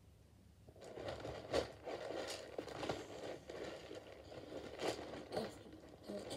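Slime being squished and stretched by hand: a continuous run of sticky crackles and small pops, starting about a second in.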